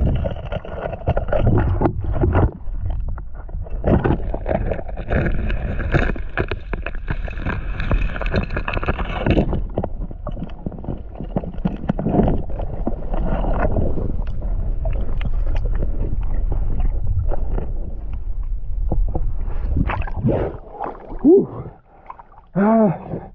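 Muffled underwater noise picked up by a camera held under the water: a steady water rush and gurgling with many small knocks and clicks as the diver swims and handles the spear. Near the end the water noise drops away and a few short vocal sounds from the diver are heard.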